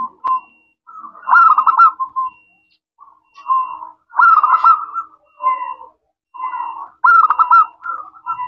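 Zebra dove (perkutut) cooing: repeated warbling coo phrases, with three loud phrases about three seconds apart and shorter, softer notes between them.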